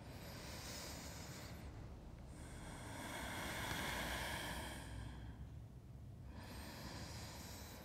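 A man breathing slowly and deeply while holding a yoga pose: three long, soft, hissing breaths with short pauses between them, the middle one the longest and loudest.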